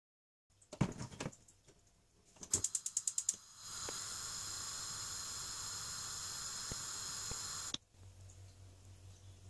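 Gas stove burner being lit to heat sparge water: a quick run of about ten sharp igniter clicks, then the burner hissing steadily until it cuts off abruptly near the end.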